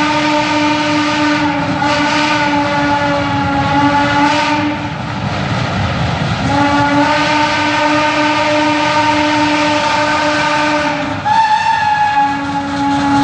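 Steam whistle of a geared Shay logging locomotive blowing long blasts, broken once about five seconds in, its tone shifting briefly near the end, over the locomotive's working exhaust as it climbs with a passenger train.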